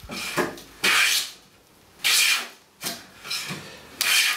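Stanley No. 5½ jack plane taking shavings along the edge of a softwood 2x4 board: three quick hissing strokes, with fainter scrapes between them.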